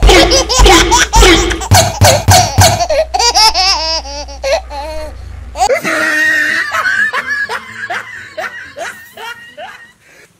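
Laughter sound effect: hard, rapid bursts of laughing over a deep bass beat, then a long, wavering, high-pitched laugh that fades out near the end.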